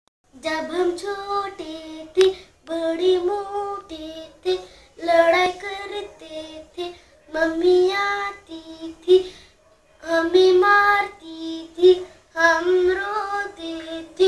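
A young boy singing a Hindi nursery rhyme in a sing-song voice, in short phrases with brief pauses between them.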